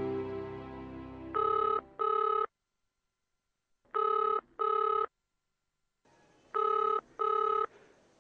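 A cordless landline telephone ringing in a double-ring pattern: two short electronic rings, repeated three times about every two and a half seconds. Background score music fades out just before the first ring.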